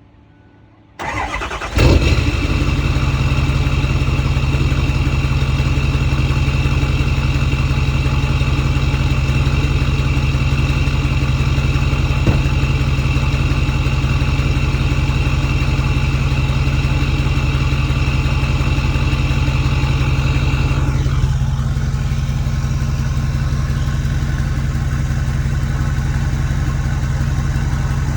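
Ford 6.4 Powerstroke twin-turbo V8 diesel cold-starting: it cranks briefly about a second in, catches and settles into a steady fast idle. About twenty seconds in, a high steady tone drops out and the idle settles slightly quieter.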